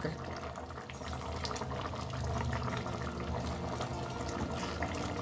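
Thick Manchurian gravy simmering in a kadai, bubbling and popping steadily.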